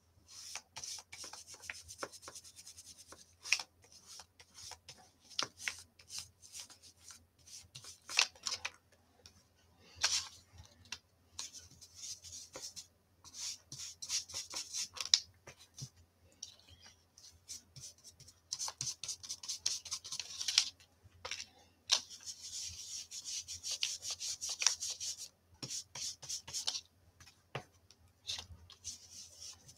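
Blending brush rubbed over cardstock to colour in ink: a soft, dry scratchy brushing in many short, irregular strokes, with brief pauses between them.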